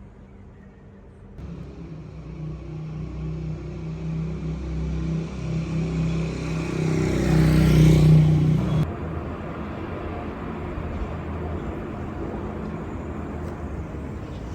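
A motor vehicle's engine running with a low hum that grows steadily louder for several seconds, then drops off abruptly, leaving a steadier low rumble.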